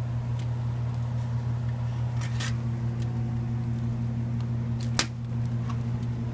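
Steady low hum of a refrigerated drink cooler, with a few light clicks and knocks as a metal can is handled off the shelf, the sharpest about five seconds in.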